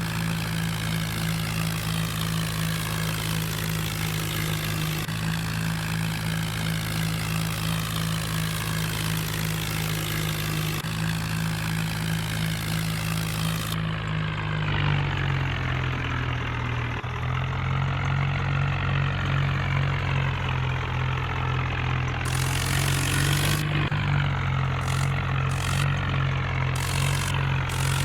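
A vehicle engine running steadily at idle, its note shifting slightly about halfway through.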